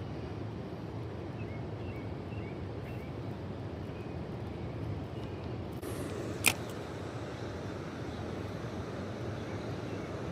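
Steady low outdoor rush with faint high chirps in the first few seconds and a single sharp click about six and a half seconds in.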